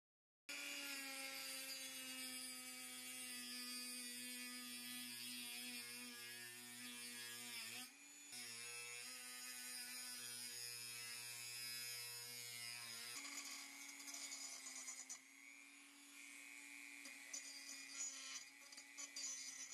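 Handheld high-speed rotary tool whining steadily as its abrasive cut-off disc cuts through a threaded steel bolt, with a brief dip in speed about eight seconds in. About thirteen seconds in the sound turns rougher and uneven as a grinding stone on the rotary tool grinds the cut end.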